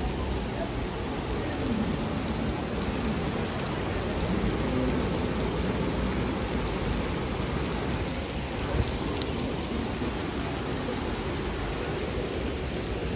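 Heavy rain falling steadily on wet cobblestone paving, an even hiss of downpour, with one short tap about two-thirds of the way through.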